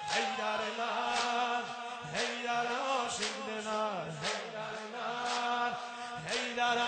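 A male reciter chants an Azeri mourning noha (elegy) in long, ornamented phrases over a steady held note. A crowd of mourners beats their chests in unison about once a second.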